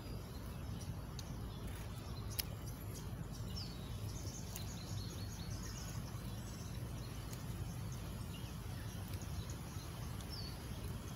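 Outdoor ambience: birds chirping faintly a few times over a steady low rumble, with a single sharp click about two seconds in.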